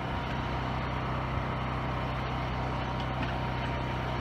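A heavy vehicle's engine running steadily with a low, even hum.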